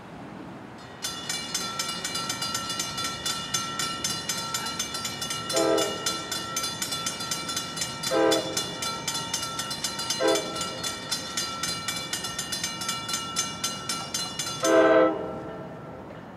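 Railroad grade-crossing warning bell ringing rapidly and steadily as the signals activate for an approaching train. Over it the train's horn sounds the crossing signal of four blasts, long, long, short, long. The final blast is the loudest, and the bell stops with it.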